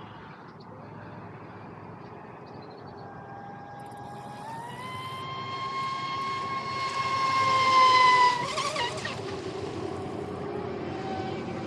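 Electric motor of a Pro Boat Sonicwake V2 RC boat, fitted with an OSE 4514 propeller, whining at speed. The high whine rises and steps up in pitch, holds steady as it grows louder, then drops sharply about eight seconds in.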